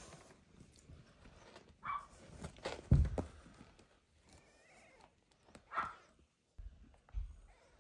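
Newborn kittens giving short, high mewing cries a few times, with a loud low thump from handling about three seconds in.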